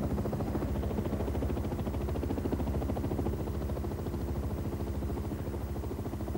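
Helicopter in flight: engine and rotor running steadily with a rapid, even beat.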